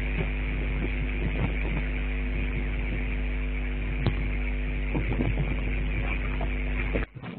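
Steady electrical hum with a constant hiss underneath, cutting off abruptly near the end.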